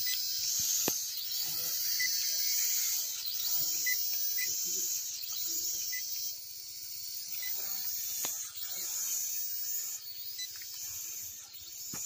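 Small remote-control quadcopter drone in flight, its propellers giving a high-pitched buzz that wavers up and down in pitch.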